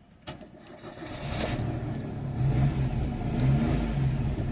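Daewoo Matiz 800 cc three-cylinder petrol engine starting after a key click, then running and growing louder. It fires now that its ECU's immobilizer has been disabled, after cranking without starting before.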